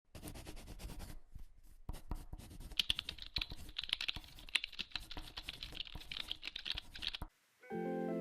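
Rapid, irregular typing on a computer keyboard, the keys clicking in quick runs for about seven seconds and then stopping. Just before the end, guitar-led background music begins.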